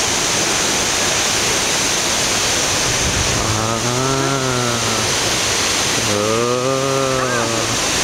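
Waterfall pouring down a rock face into a pool: a loud, steady rush of water. Over it, a man's voice twice gives a long, drawn-out call, about midway and near the end.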